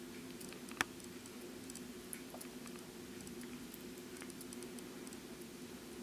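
Copal Model 227 electric flip clock running: a faint steady hum with one sharp click about a second in and a few much fainter ticks.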